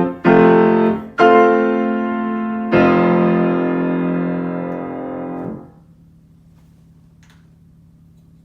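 Piano playing the closing chords of a waltz: three chords struck about a second apart, the last held and fading for about three seconds before it is damped off abruptly. A faint steady hiss follows.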